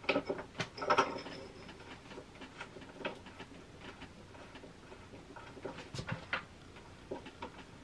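Hand screwdriver driving a screw into the side panel of a bookcase: faint, irregular clicks and ticks as the screw is turned in, with a few sharper knocks about a second in and again near six seconds.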